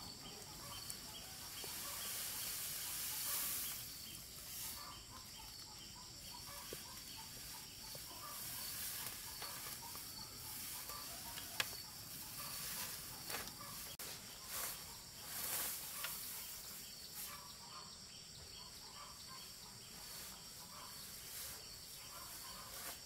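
Faint rural outdoor ambience: a steady high-pitched insect drone with swells of rustling hiss and a few short chirps, and one sharp click about halfway through.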